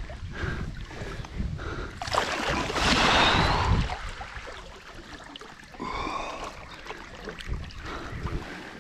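Water splashing and churning as a large wels catfish thrashes at the surface, with a loud burst of splashing lasting about two seconds starting about two seconds in.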